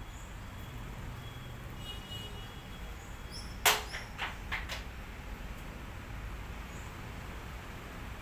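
A sharp click about three and a half seconds in, followed by three fainter clicks within the next second, over a steady low background rumble, with a few brief high chirps near the clicks.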